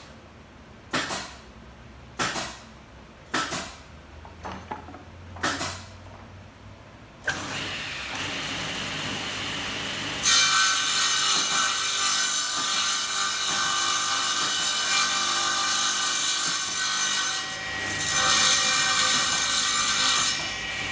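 A series of sharp knocks about a second apart, then a table saw starting up and cutting a pine board. The saw runs for a few seconds, the cut begins about ten seconds in and is much louder, dips briefly, resumes, and stops near the end.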